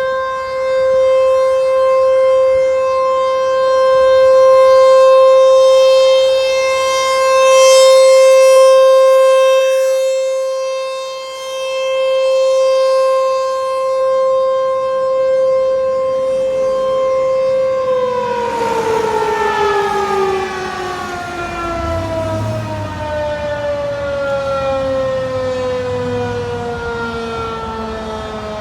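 ASC T-128 outdoor warning siren sounding a steady tone during its test, the loudness swelling and fading as the rotating siren sweeps around. About two-thirds of the way in, the pitch begins to fall steadily as the siren winds down.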